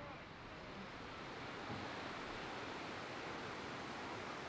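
A steady rushing noise with no distinct events, slowly growing louder.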